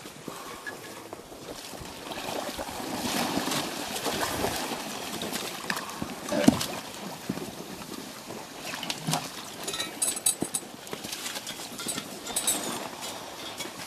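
Water sloshing and gurgling in an ice hole around divers in the water, with scattered knocks, the sharpest about halfway through.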